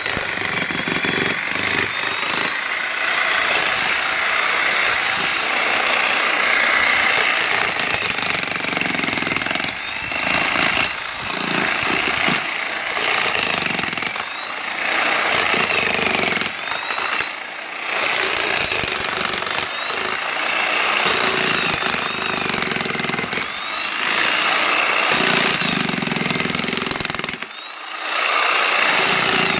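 Jackhammer drilling a hole, hammering continuously with brief pauses every few seconds.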